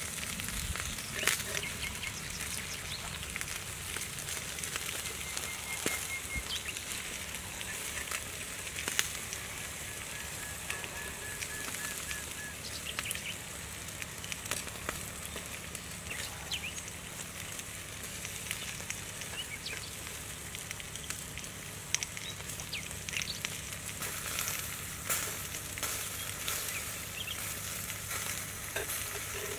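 Fish sizzling on hot clay tiles over a wood fire, a steady hiss with scattered pops and crackles.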